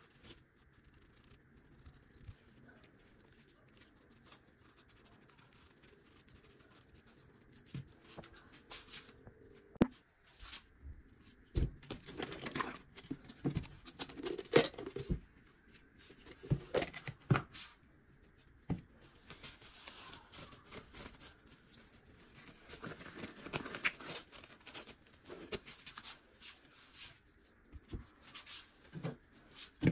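Hands handling a plastic lacquer tub, prying and peeling its lid open: irregular plastic clicks, knocks and rustling scrapes, starting after a quiet first few seconds.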